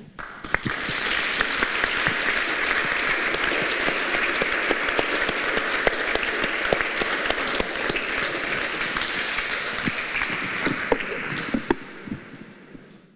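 Audience applauding, with many dense hand claps that hold steady and then fade out near the end.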